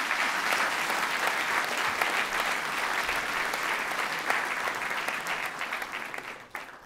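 Large audience applauding, the clapping dying away near the end.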